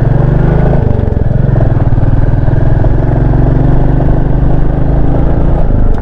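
Motorcycle engine running steadily under way, heard from the rider's seat, its note shifting briefly about a second in.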